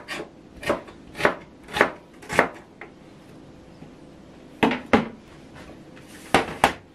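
Kitchen knife slicing an onion into large pieces on a plastic cutting board: about five knife strokes knocking on the board, roughly every half second or so. After a pause, two pairs of separate knocks follow in the second half.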